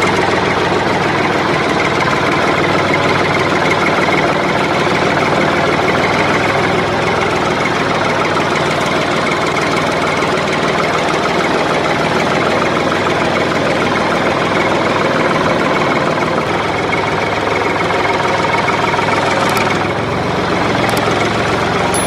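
An engine running steadily, without a break.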